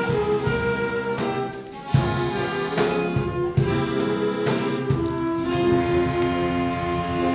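Klezmer ensemble of accordions, flute, clarinets, cello and guitar playing a dance tune in sharply accented chords, then settling onto a long held chord about two-thirds of the way in.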